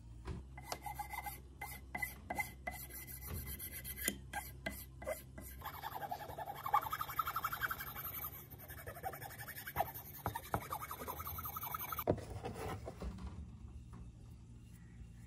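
Hand abrasive work, filing or rubbing with an abrasive: a run of quick separate strokes, about three a second, then several seconds of continuous rubbing that stops abruptly near the end.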